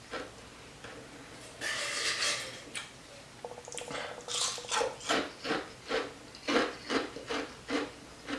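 Crushed ice being chewed: a run of crisp crunches, about two to three a second, starting about four seconds in. About two seconds in there is a brief scrape, the spoon in the bowl of ice.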